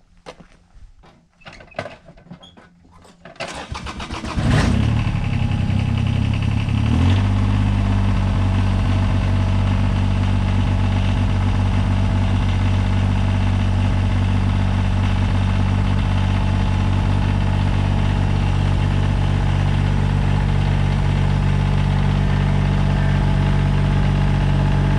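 A few knocks, then the 2003 Kubota BX22's three-cylinder diesel engine is cranked, catches after about a second, and settles after a few seconds into a steady idle.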